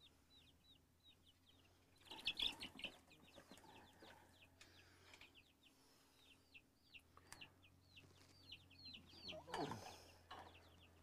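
Nine-day-old chicks peeping continuously, a rapid string of short, high, falling peeps. A burst of rattling knocks about two seconds in is the loudest part.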